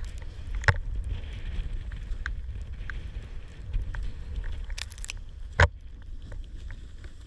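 Snowboard riding through powder snow, heard through a steady low wind rumble on a pole-mounted action camera's microphone, with a few sharp knocks, the loudest about five and a half seconds in.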